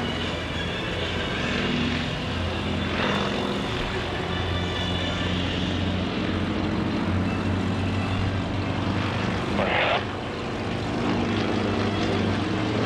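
Propeller engines of two Yak-55 aerobatic planes droning overhead, their pitch shifting as they manoeuvre, with a brief burst of noise about ten seconds in.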